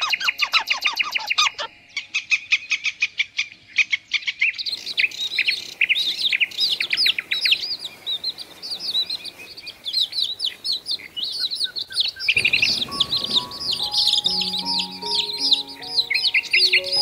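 Birds chirping rapidly, many short high calls overlapping. About twelve seconds in, music with held notes comes in underneath.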